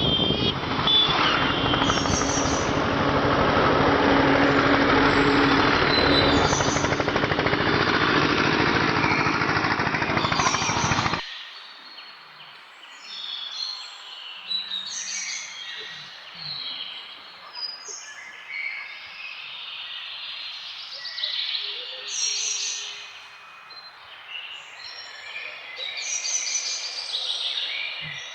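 A loud steady rushing noise that cuts off abruptly about eleven seconds in. After the cut, several small birds chirp and call in short, high bursts over quiet village surroundings.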